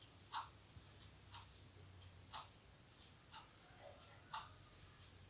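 Clock ticking faintly and steadily, one tick each second.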